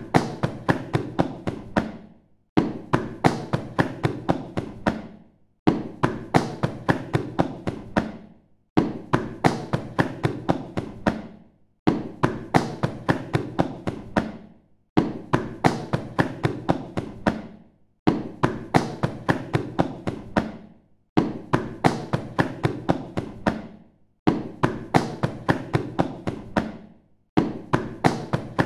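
Boots being smacked to knock snow off: sharp thuds in bursts of about eight, roughly three a second. Each burst ends in a short pause, and the bursts repeat about every three seconds.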